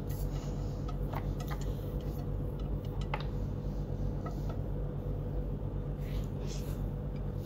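Wooden chopsticks tapping and scraping against a pan and a ceramic plate as stir-fried squash shoots are pushed off and arranged: a scatter of small light clicks. A steady low hum runs underneath.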